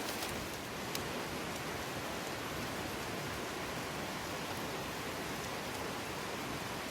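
Steady rain falling, an even hiss with no let-up, with one faint click about a second in.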